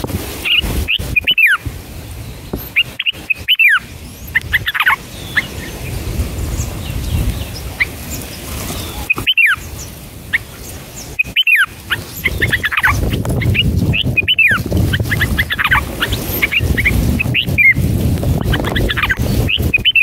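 Red-whiskered bulbuls chirping at the nest: clusters of short, high, falling notes every couple of seconds over a low rumble. The sound cuts out completely for a moment several times.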